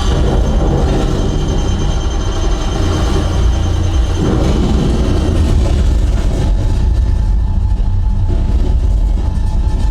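Film soundtrack played loud through a home-theatre system, dominated by a continuous deep bass rumble from a REL T9i subwoofer, with score and effects above it.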